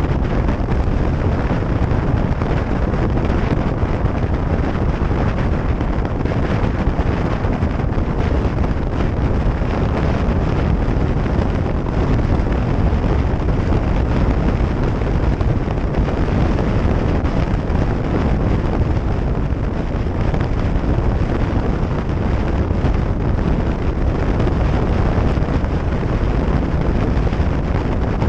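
Steady wind rush buffeting the microphone of a camera on a motorcycle cruising at motorway speed, mixed with the bike's engine and road noise.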